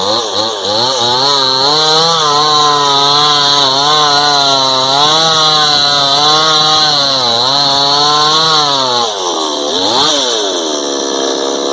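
Chainsaw running at high throttle while cutting a tree, its pitch wavering up and down as the cut loads it. About nine seconds in the pitch drops, gives one quick rev up and down, then settles lower and steadier.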